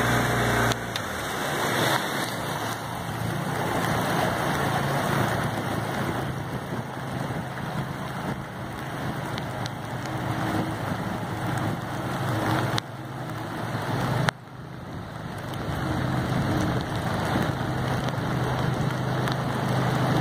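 Steady hiss of rain falling on the water, with a boat motor running underneath as a low, even hum.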